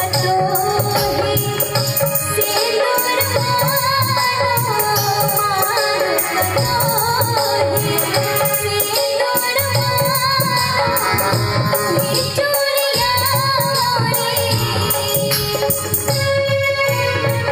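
Folk-style song music: hand percussion and a shaker keep a steady beat under a wavering melody line.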